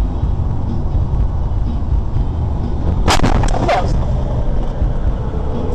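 Steady road and engine noise heard from inside a moving car. About three seconds in comes a cluster of sudden sharp bangs lasting under a second.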